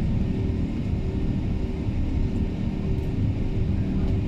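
Airbus A380 in its climb after take-off, heard from inside the cabin: the engines and rushing air make a steady low rumble with a steady hum in it.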